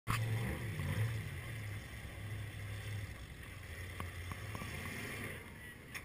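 Off-road 4x4 engine running as a steady low drone, shifting slightly in pitch while the rig works up a steep dirt hill climb; loudest in the first second.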